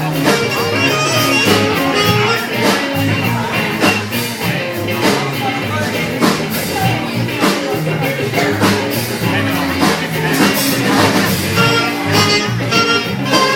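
Live band playing a bluesy jazz number with a steady drum beat.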